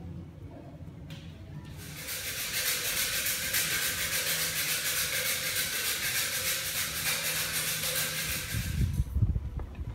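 A steady hiss from the gas flame in a metal incense-lighting lantern, starting about two seconds in and cutting off near the end. Low rumbling knocks come in just before it stops.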